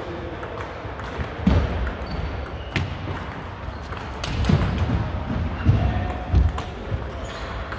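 Table tennis rally: the plastic ball clicking sharply off bats and the table a few times, with heavier thuds of players' shoes landing on the wooden sports-hall floor.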